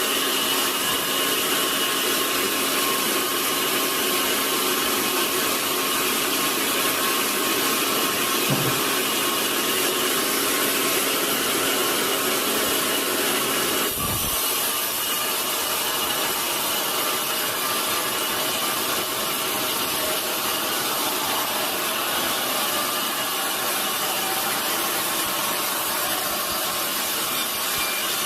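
Large sawmill saw running steadily through a redwood log: a constant loud rasping noise with a few steady high pitches. A brief low thump comes about halfway through.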